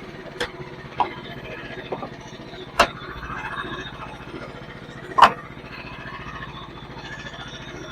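Sawmill engine running steadily, with several sharp wooden clacks and knocks, the loudest about a third of the way in and again past halfway.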